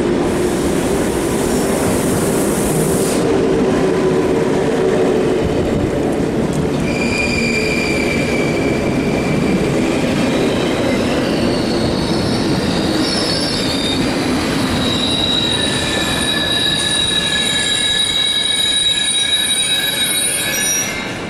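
Double-deck electric passenger train rolling in slowly along a platform, a steady rumble with a high hiss in the first few seconds. From about a third of the way in, wheels and brakes squeal in several high, overlapping tones as it slows to a stop.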